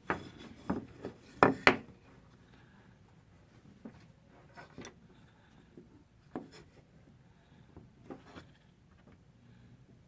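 A small piece of quarter-inch wire mesh being bent by hand over wooden boards, with scattered clicks, taps and rubs of wire and wood on the work surface. A couple of louder knocks come a little over a second in, then sparser taps.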